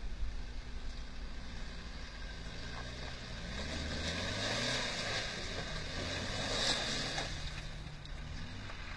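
Jeep Cherokee SUV crawling up a rocky track: its engine pulls under load and rises in pitch a few seconds in, with the tyres crunching over loose stones, loudest as the vehicle comes closest.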